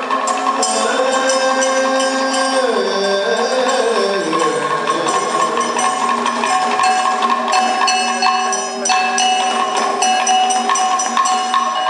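Kathakali music: a singer holds long notes with slow glides between them for the first four seconds or so, over a chengila gong struck with a stick and ilathalam hand cymbals keeping a steady rhythm of metallic strikes and ringing.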